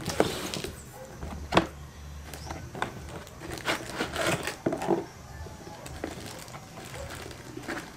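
Unboxing handling noises: plastic packaging rustling and welding-machine accessories knocking and clicking as they are taken out, with a sharp knock about a second and a half in.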